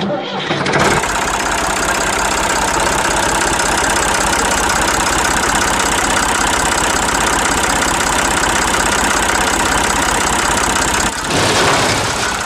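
Tractor engine running steadily with a fast, even chug; the sound changes about eleven seconds in.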